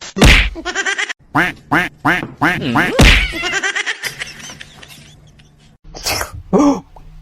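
An animal calling in a rapid run of about eight short calls over the first three seconds, then two more calls near the end.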